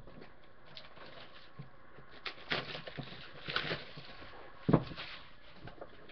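Sealed trading-card boxes being handled and moved about on a stone countertop: rustling and a few scattered knocks, the sharpest about three-quarters of the way through.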